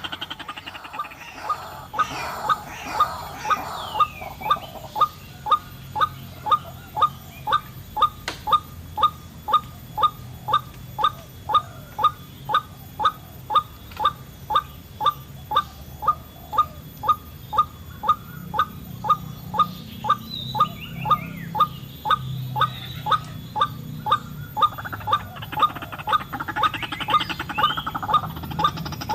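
White-breasted waterhen calling: a long run of short, even 'kook' notes at about two a second, with a burst of overlapping, more jumbled calling at the start and again near the end.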